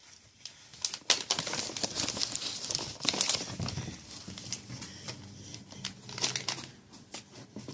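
Gift packaging crinkling and rustling as it is handled and rummaged through, in an irregular run of crackly scrunches with a few sharper tearing sounds.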